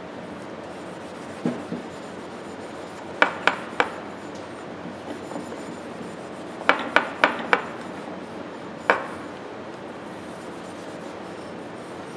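Steady rubbing of a rag or steel wool over small blued steel ratchet parts, broken by sharp clicks of the parts: a quick group of three about three seconds in, four more about seven seconds in, and a single one near the end.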